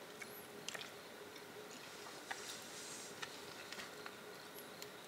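Faint eating sounds: scattered small clicks and ticks of utensils and chewing, with a brief soft hiss about halfway through.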